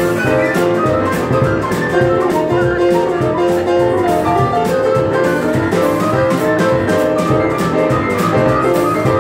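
Boogie-woogie played live on a grand piano, with a steady driving rhythm.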